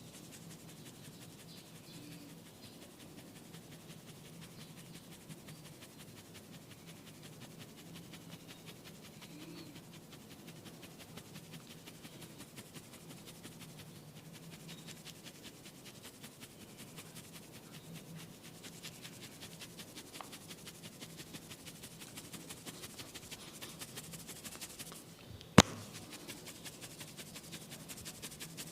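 Quick, even rubbing and scratching strokes of a barber's head massage on the client's hair and scalp, with one sharp snap about 26 seconds in.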